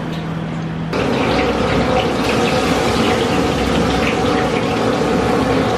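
Hot oil sizzling and bubbling in a large kadai as peanut pakodi batter deep-fries, with a dense fine crackle. The sizzle starts suddenly about a second in, after a steady low hum.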